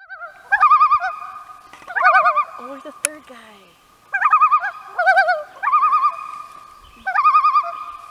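Common loons giving their tremolo call: a quavering, laughing call repeated in about six short loud phrases.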